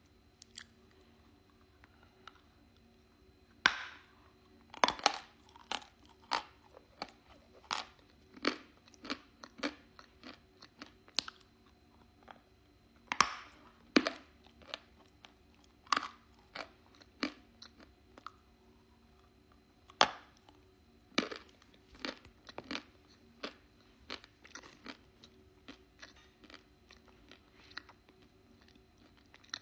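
Close-up crunching of a piece of edible chalk being bitten and chewed: irregular sharp crunches, a few close together then short pauses, with the loudest bites about four, thirteen and twenty seconds in.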